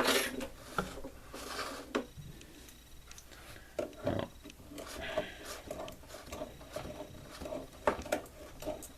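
Wrench and plastic socket body working a tight-fitting USB/12V outlet out of its hole in a metal ammo can: irregular clicks, short scrapes and rubbing as it is turned and forced out slowly.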